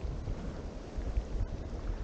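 Wind buffeting the microphone in uneven low gusts over a steady hiss of open water.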